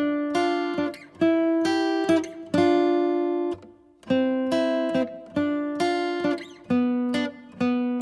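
Background music: an acoustic guitar playing a rhythmic pattern of struck chords, each ringing briefly and then damped.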